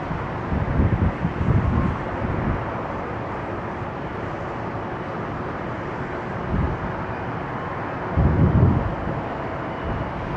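Wind buffeting the microphone in gusts over a steady outdoor rushing noise, with low rumbles a few times.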